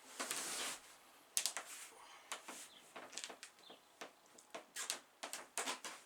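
A short rush of breathy noise, then a string of irregular sharp clicks and taps.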